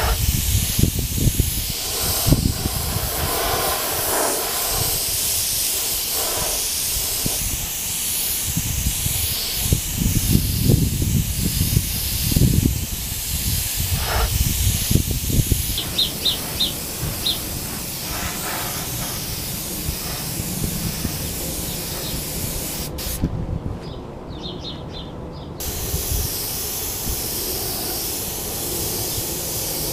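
Iwata airbrush spraying paint, a steady hiss of compressed air, cutting out briefly about three-quarters of the way through and then resuming. Low rumbling gusts sit under the hiss in the first half.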